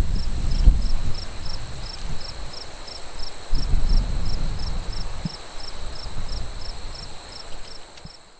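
Insects singing outdoors: a steady high drone with a regular chirp about two or three times a second, over an uneven low rumble.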